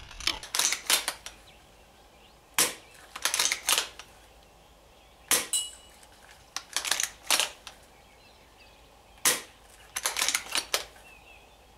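UTG M324 bolt-action airsoft sniper rifle being fired and its bolt worked: sharp snaps each followed by a quick run of metallic clicks, repeated about three times.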